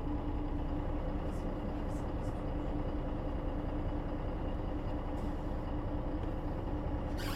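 1998 MAN NG 312 articulated bus's diesel engine running at a steady speed, heard from inside the bus as an even drone with a low hum. A short sharp click comes near the end.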